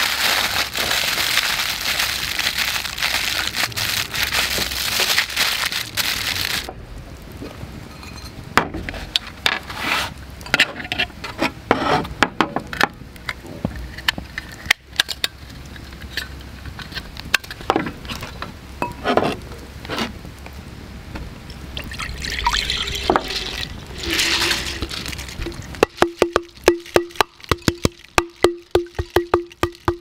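Aluminium foil crinkling as it is folded around a joint of meat, over a crackling wood fire. Then scattered light clicks of a folding metal pocket stove being handled and a fuel tablet set in it, and near the end a fast patter of rice grains dropping into water in a clay pot, with a faint ring from the pot.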